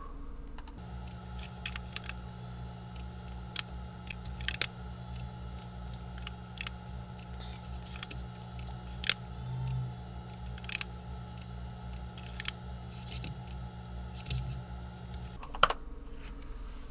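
Scattered clicks of a computer mouse and keyboard, now and then several in quick succession, over a steady low hum that starts about a second in and stops shortly before the end.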